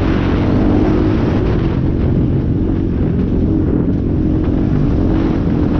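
Motocross dirt bike engine running steadily under the rider, heard close up from a helmet-mounted camera, its pitch rising and falling slightly.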